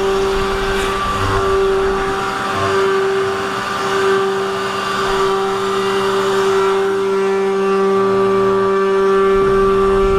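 A 500 W spindle on a 3018 desktop CNC router whines steadily at a constant pitch as its end mill cuts a slot through a wooden board. A lower hum comes and goes in short spells under the whine.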